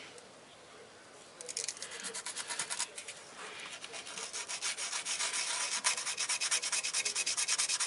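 Fine sandpaper wetted with WD-40 rubbed by hand in quick back-and-forth strokes over an engine cylinder block deck, starting about a second and a half in and settling into a steady rhythm. It is scrubbing off rubber residue left by the old head gasket.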